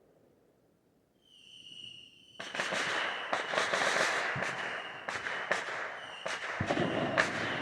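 Fireworks: a whistling firework gives a steady high whistle for about a second, then, about two and a half seconds in, a dense run of rapid bangs and crackling sets in and keeps going.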